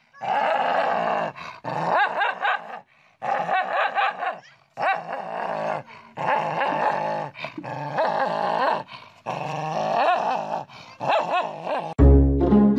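A dog snarling and growling at its own reflection, in wavering runs of a second or two broken by short pauses, with a few barks mixed in. Music starts near the end.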